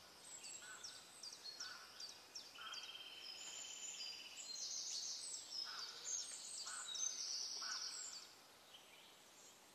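Faint birdsong: many short high chirps and falling whistles with a buzzy trill among them, stopping about eight seconds in.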